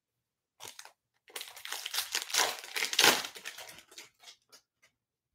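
Foil wrapper of a trading-card pack crinkling as it is torn open and handled: a brief crackle, then about three and a half seconds of dense crinkling.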